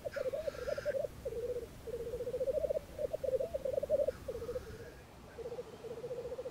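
Male black grouse lekking: a continuous chorus of rolling, bubbling cooing from several birds, with a short hissing call near the start and a fainter one about four seconds in.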